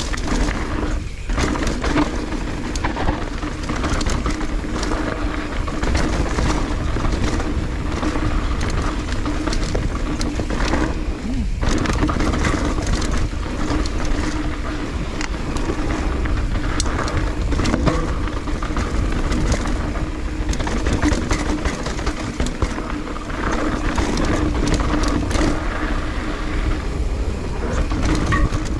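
Transition mountain bike riding fast down a dirt singletrack: tyres rolling over dirt and roots, with frequent clicks and rattles from the chain and frame. A steady low rumble of wind on the camera's microphone runs underneath.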